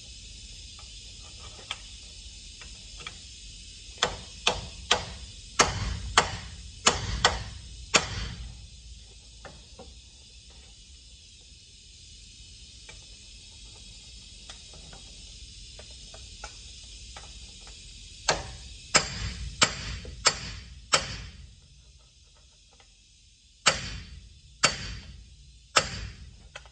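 Hammer blows on the steel steering knuckle of a truck's front axle during king pin replacement, each strike ringing briefly. They come in three runs, about eight blows, then five, then three, with light metal clicks between.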